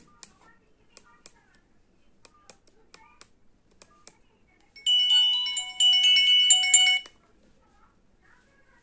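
Old Nokia mobile phone: a few light key clicks, then about two seconds of its electronic ringtone melody playing through the phone's small speaker in stepped beeping notes, cutting off abruptly.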